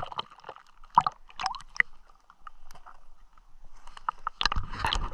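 River water splashing and sloshing in irregular strokes as a person wades through it, with a denser run of splashing near the end.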